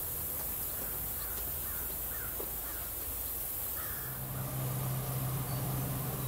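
A crow cawing, a string of about five short caws roughly half a second apart. About two-thirds of the way in, a steady low hum starts and runs on.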